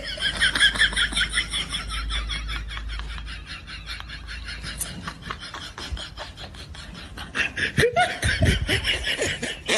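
Laughter: a long run of quick, high-pitched laughing pulses, with a deeper voice breaking in about eight seconds in.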